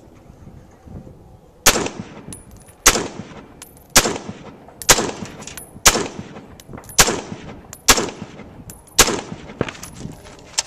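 A DPMS LR-308 semi-automatic .308 rifle with an SJC Titan muzzle brake firing a string of about nine shots, roughly one a second, starting about two seconds in. Short high-pitched rings follow several of the shots.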